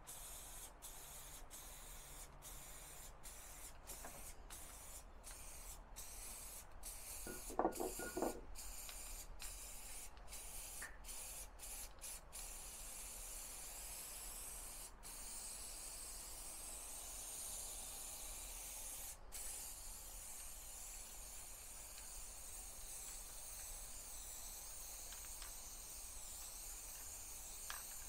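Aerosol spray adhesive hissing from a can, in short bursts with brief pauses at first, then a nearly continuous spray from about twelve seconds in. A brief clatter about eight seconds in is the loudest moment.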